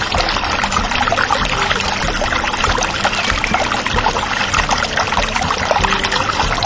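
Water pouring and splashing steadily, a dense trickling rush.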